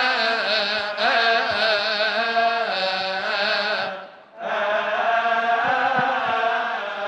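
Coptic Orthodox liturgical chant: voices singing a church hymn in long, wavering held notes, breaking off briefly about four seconds in and then going on.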